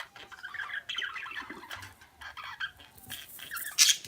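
Pet parakeets chattering and chirping in quick, overlapping calls, with a louder scratchy burst near the end.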